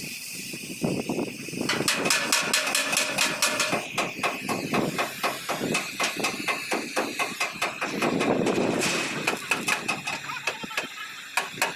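Repeated metal knocks and hammer strikes on the steel front bumper of an old truck, very fast for a couple of seconds near the start and then at a steadier pace. Under them a gas cutting torch keeps up a steady hiss.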